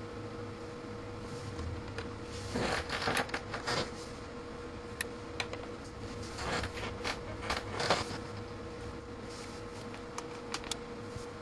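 Clicks and rattling of a hand working the rotary range switch of a B&K Precision 2703C multimeter, in two bursts a few seconds apart with a few single clicks between and after, over a steady electrical hum from the test bench.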